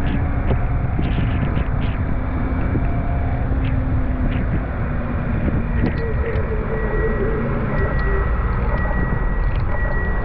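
A car being driven: steady low road and engine rumble, with scattered light ticks over it.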